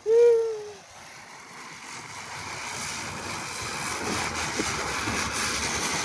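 A short shout, then a lit ground firework spraying sparks with a steady hiss that grows louder over the first few seconds and then holds.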